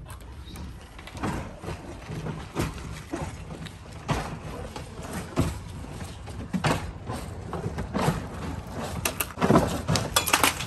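Roofers tearing old asphalt shingles off the roof overhead: a scraping knock about every second and a half over a steady low rumble, the knocks coming thicker near the end.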